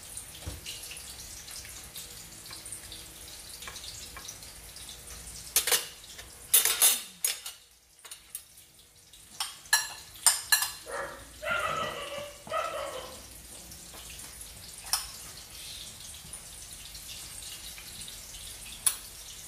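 Kitchen utensils knocking and clinking against dishes and a pan several times in the middle stretch, over a steady hiss.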